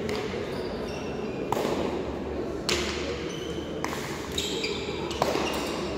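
A hard pelota ball cracking off the players' hands and the frontón wall in a rally: four sharp impacts, roughly one every second and a bit, each with a short echo in the hall.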